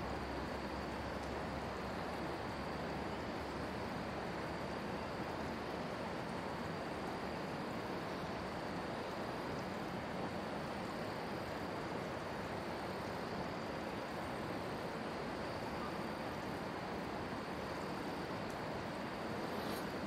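Steady, even rushing background noise with no bird calls standing out, and a faint steady high hum above it.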